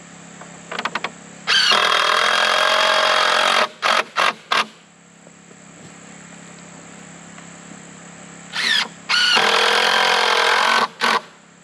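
Cordless drill driving screws into pallet wood: two runs of about two seconds each, the first a little over a second in and the second near the end, each with short spurts of the motor around it as the screw is started and seated.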